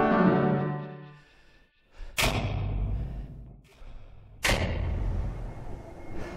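Film score music fades out to near silence. Then come two sudden booming hits, about two seconds apart, each opening with a sharp crack and trailing into a low rumble: cinematic sound-design impacts.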